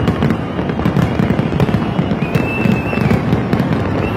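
Aerial fireworks finale: a continuous rapid barrage of bursts making a steady booming rumble shot through with sharp cracks and crackle. A single held high whistle sounds for about a second midway.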